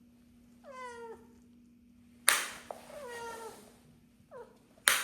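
Kitten meowing three times, each call falling in pitch, the last one short. Two sharp sudden knocks, about two seconds in and near the end, are louder than the meows.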